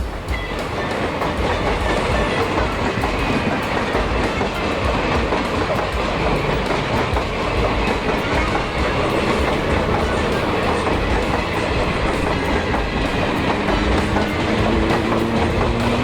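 A train running on rails: a steady rumble with the wheels clicking over rail joints, growing louder over the first couple of seconds.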